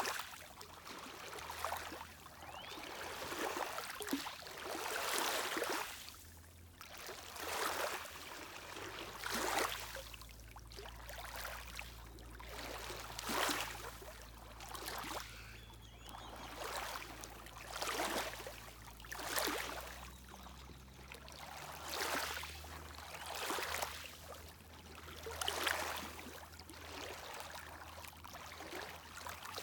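Small lake waves lapping and washing on the shore, a surge every one and a half to two seconds. About nine seconds in, a steady low boat-motor hum joins them and carries on underneath.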